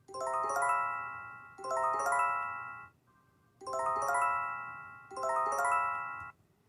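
Japanese earthquake early warning chime: four quick rising arpeggios of bell-like tones, played as two pairs with a short pause between them, each ringing out and fading. The chime is meant to catch attention and calm listeners so they act quickly, not to frighten.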